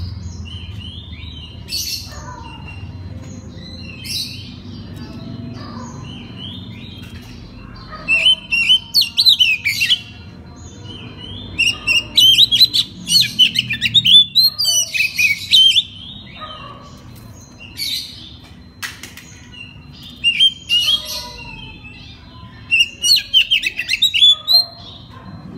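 Oriental magpie-robin (kacer) singing: loud bursts of rapid, varied whistled and chattering phrases, each lasting a couple of seconds, with a few single short calls in the first seconds.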